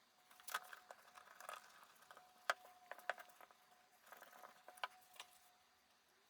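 Faint scattered clicks and light knocks of small wooden pieces being handled for gluing, with a few sharper taps about halfway through and again near the end.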